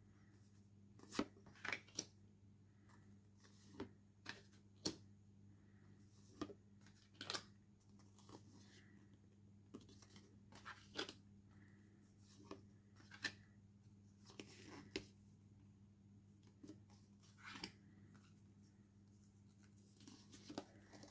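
Postcards handled one by one off a stack: faint, short taps and slides of card against card at irregular intervals, over a steady low electrical hum.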